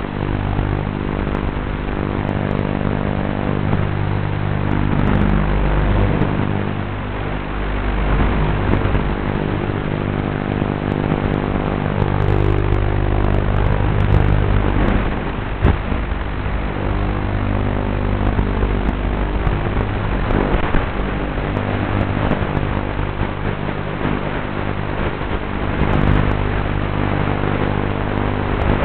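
QAV210 racing quadcopter in flight, heard through its onboard camera: motors and propellers running with a steady buzz, the pitch rising and falling several times as the throttle changes.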